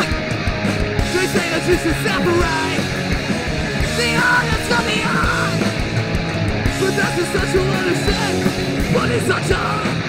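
Punk rock band playing live at full volume, with yelled vocals coming and going over the dense band sound.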